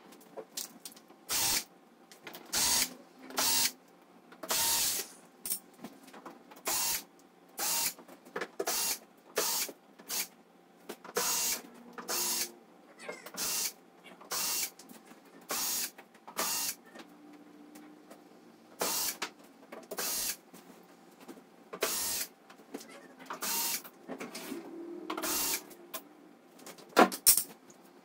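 Cordless drill/driver running in short bursts, roughly once a second, backing screws out of the TV's case. Near the end comes one loud sharp snap.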